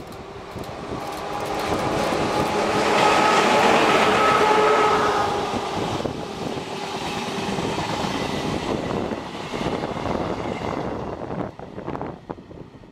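Passenger train passing: CP electric locomotive 5617 hauling the dead locomotive 2623 and a rake of coaches. The rumble swells to its loudest about three to five seconds in as the locomotives go by, with a steady tone over it. The coaches then roll past with a steadier rumble that fades near the end with a few wheel clicks.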